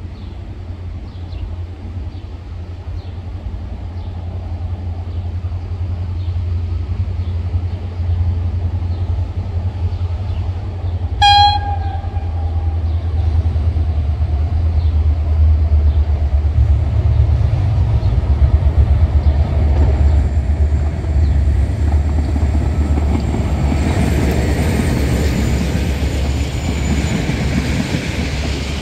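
Diesel locomotive approaching with a steady low engine rumble that grows louder, and one short single-tone horn toot about eleven seconds in. The train's wheels on the rails build up toward the end as it draws near.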